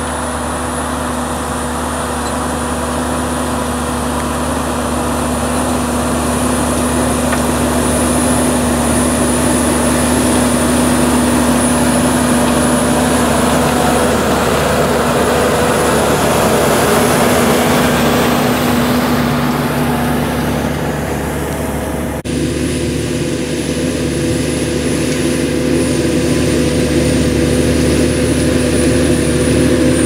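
Massey Ferguson tractor's engine working steadily under load, pulling front- and rear-mounted ploughs through the soil, with a thin high whine above the engine note. It grows louder as the tractor comes closer. The sound jumps abruptly about two-thirds of the way through.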